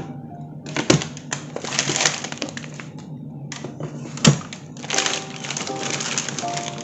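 Household handling noises: two sharp knocks and stretches of hissy rustling, over soft background music.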